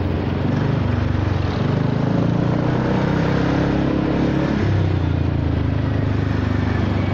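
Honda Forza 300 scooter's single-cylinder engine running at low revs through an aftermarket exhaust while rolling in slow traffic. The note shifts about four and a half seconds in. The rider finds this pipe a little restrictive, with the revs coming up sluggishly.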